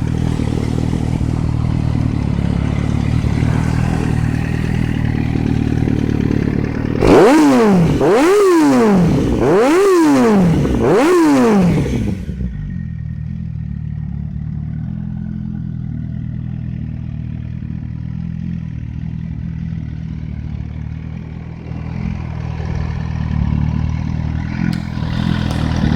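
MV Agusta F4's inline-four engine idling through a single side-exit LeoVince aftermarket exhaust, its underseat pipes removed. About seven seconds in it is revved three times in quick succession, the pitch rising and falling with each blip, then it settles back to a steady idle.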